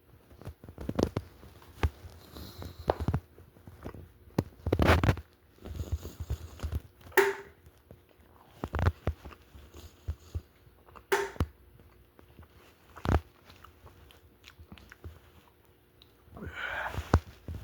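Close-up chewing and biting of a cold slice of pizza, with scattered short clicks and smacks throughout and a longer rustling burst near the end.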